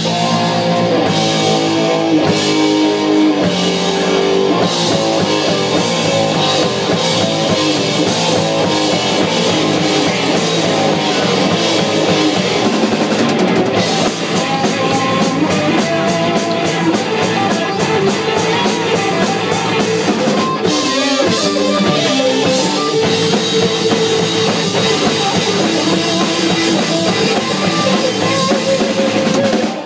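Live rock band playing an instrumental passage on two electric guitars, electric bass and drum kit, with no singing. A steady run of cymbal hits stands out about halfway through.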